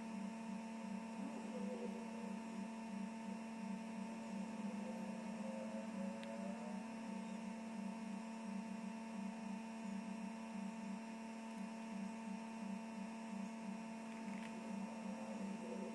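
A steady low hum with several held tones, like electrical mains hum.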